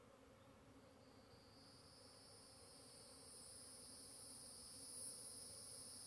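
Faint, steady hum of swarming honey bees around the hive entrance. A steady high-pitched insect trill comes in about a second or two in and grows louder.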